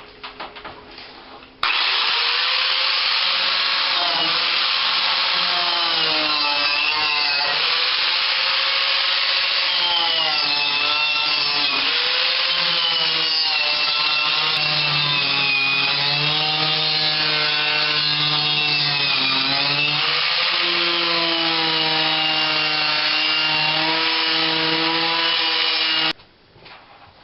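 Handheld power tool running continuously on car bodywork for about 24 seconds. Its whine keeps dipping and recovering in pitch as it is loaded against the work, starting and stopping abruptly.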